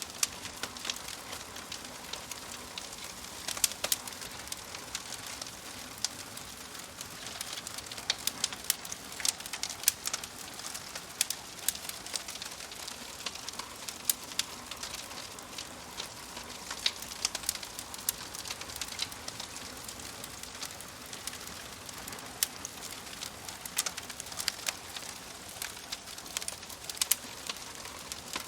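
Wood fire burning in a wood stove, crackling with frequent sharp pops and snaps over a steady hiss.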